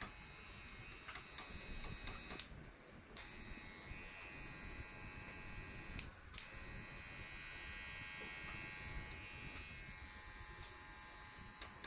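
WAHL Super Power hair clipper running with a steady buzz, broken by two short gaps about two and a half and six seconds in.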